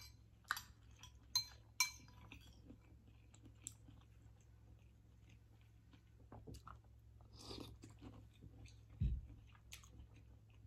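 Metal spoon clinking against a ceramic soup bowl, three ringing clinks in the first two seconds, then soft chewing and mouth sounds of someone eating shell-pasta soup. A dull low thump about nine seconds in.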